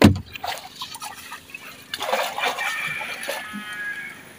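Water sloshing and splashing as a fishing net is worked by hand in shallow water, with a sudden loud splash right at the start. About two seconds in, a chicken calls for a second or so.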